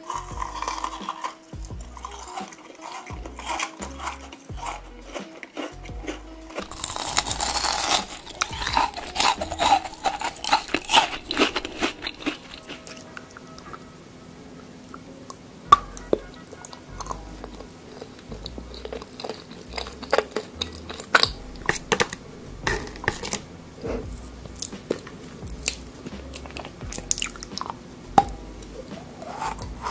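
Close-up crunching and chewing of edible look-alike salt lamps, loudest about seven to twelve seconds in, then quieter bites and chewing of white-chocolate lipsticks. Background music with a steady beat plays under it.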